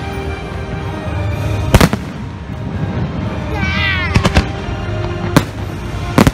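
Aerial fireworks shells bursting with sharp bangs: one about two seconds in, a close pair about four seconds in, then two more near the end. The show's music plays continuously underneath.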